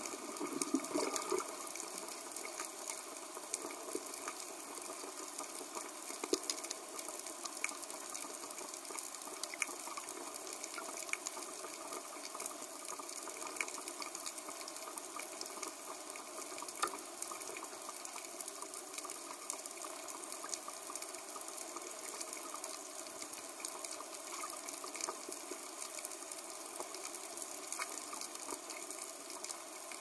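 Underwater ambience: a steady watery hiss flecked with many small scattered clicks and crackles.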